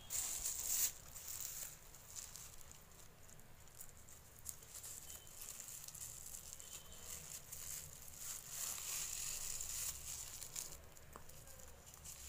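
Thin plastic bag strips crinkling and rustling as they are handled and crocheted. The rustling is strongest in the first second and again toward the end.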